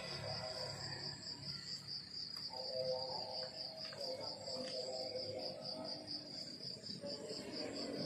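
Crickets chirping in a steady, evenly pulsed high trill, with a faint lower drone coming and going in the middle.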